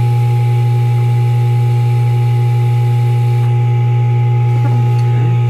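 Loud, steady low hum with a few fainter, higher steady tones above it, unchanging throughout.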